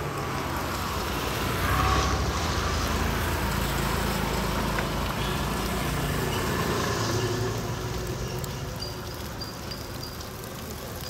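A motor vehicle passing close by on the street: its engine grows louder about two seconds in, stays strong for several seconds, and fades away after about eight seconds.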